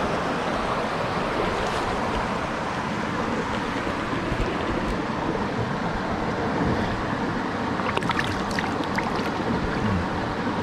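River water rushing steadily over a stony trout stream, with a few short clicks about eight seconds in.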